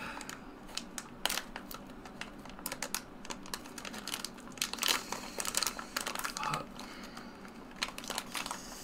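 Crinkling and crackling of a foil snack packet being bitten at and pulled with the hands to tear it open, in irregular bursts that are busiest about halfway through; the packet is not giving way.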